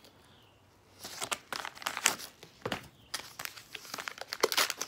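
A paper mailing envelope crinkling and tearing in the hands as it is pulled open, in irregular crackles starting about a second in.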